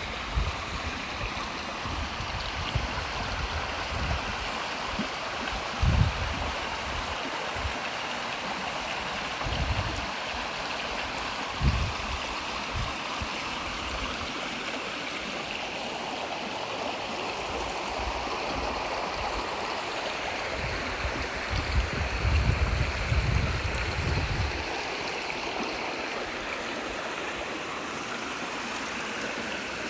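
A brook running with a steady rush of water, broken by a few brief low thumps, about six seconds in, near ten and twelve seconds, and a short cluster a little past twenty-two seconds.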